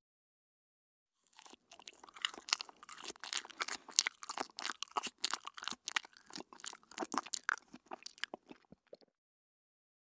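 Person chewing food in a long run of many quick, crunchy chews, starting about a second in and stopping near the end.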